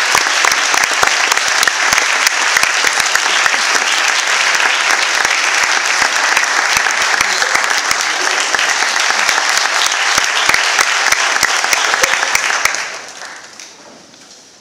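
Audience applauding a youth orchestra: dense, steady clapping that dies away about thirteen seconds in.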